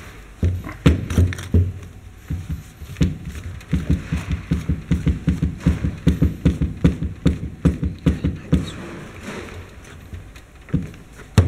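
Metal grease gun knocking against a wooden workbench as its barrel is twisted on its head: a few separate dull knocks, then a quick, even run of them, several a second, and one sharp knock near the end.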